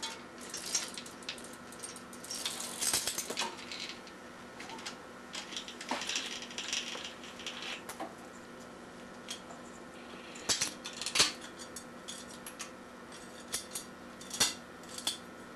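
Loose bicycle roller chain clinking and rattling against the chainrings and crank as it is wrapped up on them by hand, in irregular bursts of metal clicks with a few sharper knocks.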